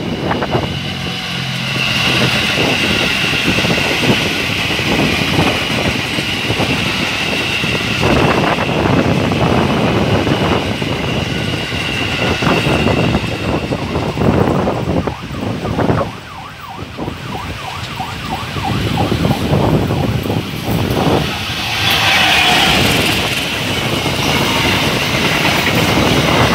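Two trains passing close by in turn: a KRL electric commuter train running past with a high steady whine over its wheel clatter, a short lull a little past the middle, then a locomotive-hauled passenger train whose coaches rumble and clatter over the rails.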